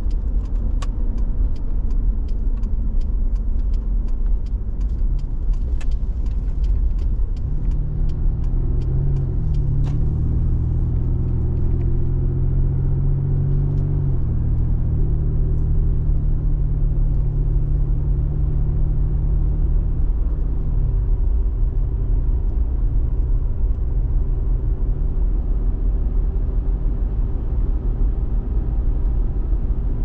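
Car driving on the road, heard through its own onboard camera: a steady low engine and tyre rumble, the engine note rising and falling a few times. Light clicks during the first ten seconds or so.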